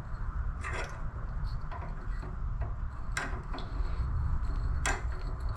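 Small G-clamps being tightened onto steel angle iron: a few sharp metal-on-metal clicks, about three, from the clamp screws and sliding tommy bars, over a steady low hum.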